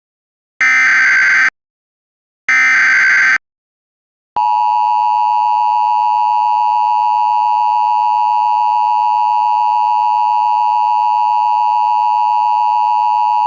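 Emergency Alert System tones. The last two of the three SAME header data bursts, each about a second long, are followed after a short pause by the steady, loud two-tone EAS attention signal.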